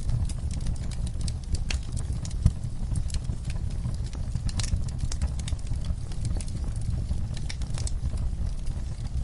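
Wood fire crackling in a fireplace: irregular sharp pops and snaps over a steady low rumble of the flames, with one louder pop about two and a half seconds in.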